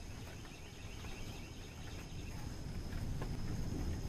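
Low rumble of thunder that slowly builds, with insects chirring faintly at a high pitch through the first half.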